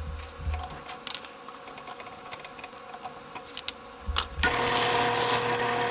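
Light knocks as a plywood disc is set on the drill press table, then about four seconds in the drill press motor starts and runs steadily with a whine, driving a half-inch Forstner bit.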